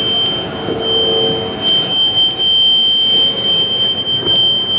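Electromagnetic fields picked up by a hand-held copper-wire antenna and heard as audio: a loud steady high-pitched whine with a fainter tone an octave above it, over a crackling hiss with scattered clicks. A participant takes the source for a protection system.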